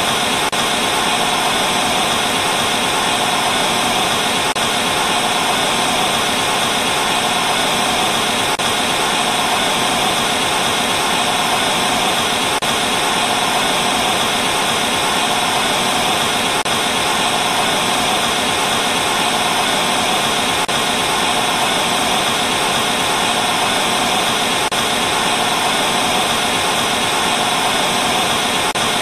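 TV static with no signal: a steady, unbroken hiss of noise, brightest in the upper-middle range, with a faint click about every four seconds.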